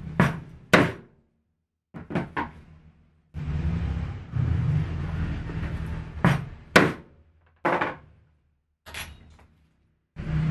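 Yellow-headed mallet striking a metal setting tool to fix the riveted leather tab that holds a D-ring on an apron: about nine sharp taps in small clusters. Between the taps there are bouts of rustling noise.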